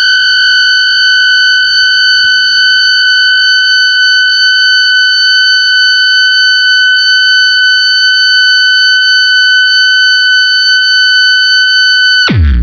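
Electric guitar through a Big Muff fuzz and MXR Analog Delay holding one steady, high-pitched sustained tone, like feedback or delay oscillation. Near the end it plunges steeply in pitch into a loud low drone.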